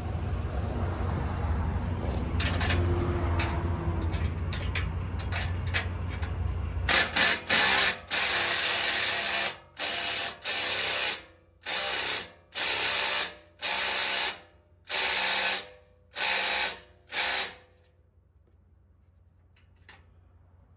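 A hand tool run in about nine short, loud, hissing bursts separated by brief pauses, over a steady low hum with a few clicks. The bursts stop a few seconds before the end.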